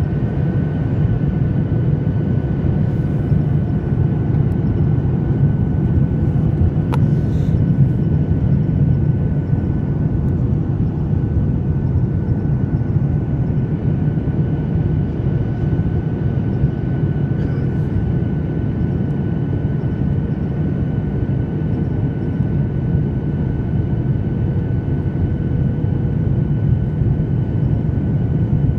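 Boeing 737-800 cabin noise in flight: a steady rumble of its CFM56 engines and airflow, with a faint steady whine over it and a small click about seven seconds in.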